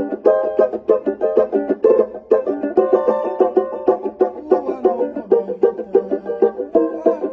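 Banjo being picked: a fast, continuous run of bright plucked notes.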